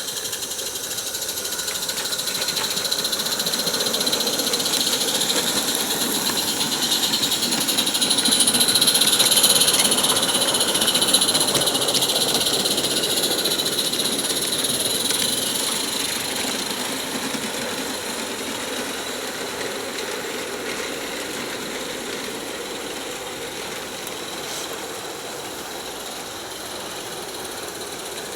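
Two 16mm-scale live steam garden locomotives, a Roundhouse Super Katie and a Garrett, running together: fast exhaust chuffing with steam hiss, growing louder to a peak about ten seconds in as they pass close, then slowly fading.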